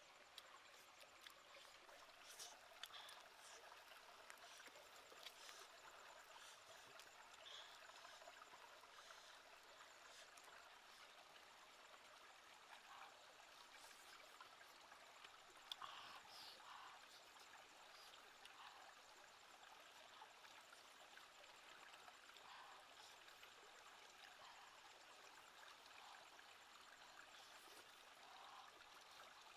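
Faint running water of a small stream flowing over rocks, with a few soft clicks now and then.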